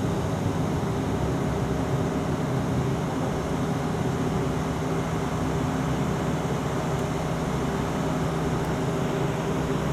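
Bombardier Q400 turboprop engines and propellers running steadily at taxi power, heard from inside the cabin: an even drone with a hum of several steady tones.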